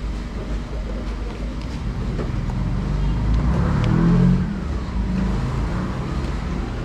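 A motor vehicle passing on the road, growing louder to a peak about four seconds in and then fading, over a steady low rumble of traffic.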